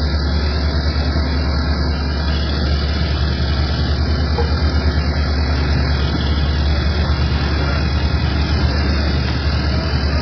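A motor or engine running steadily: a constant low hum under an even hiss, with no change in pitch or level.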